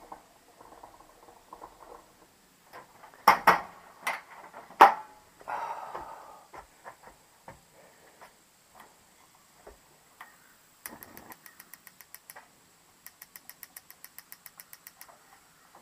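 A few loud knocks as the propane tank in the heater's base is handled, then the patio heater's battery-powered electronic igniter clicking rapidly, about ten sparks a second, in two runs near the end as it lights the gas.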